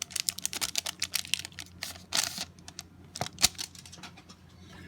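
Trading cards being handled: a stack of cards slid out of its pack wrapper and flicked through, making a quick run of light clicks and taps. There are short rustles about two and three and a half seconds in. A faint low hum runs underneath.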